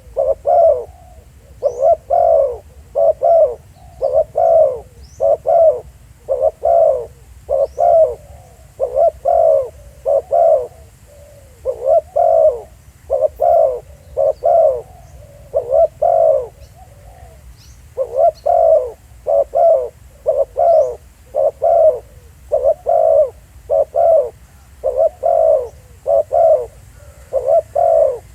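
Spotted doves cooing over and over in short phrases of two or three low notes, with brief gaps between phrases and a slightly longer pause about two-thirds of the way through. Faint chirps from small birds sound in the background.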